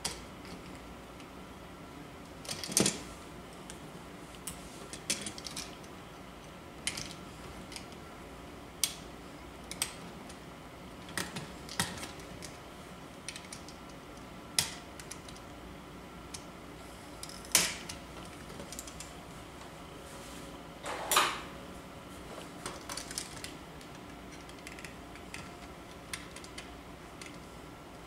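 Scattered sharp clicks and taps of hand tools and metal parts as wires are hooked onto a dimmer switch's screw terminals and the switch is fitted into the wall box, with a few louder knocks and one brief scrape.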